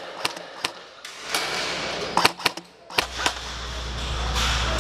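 Airsoft guns firing scattered single shots as sharp cracks, several in the first second and a few more between two and three seconds in. About three seconds in a steady low rumble sets in.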